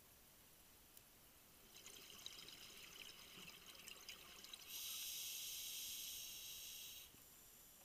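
Scuba regulator breathing underwater: a stretch of crackling exhaled bubbles about two seconds in, then a steady hiss of inhalation through the regulator from about five to seven seconds.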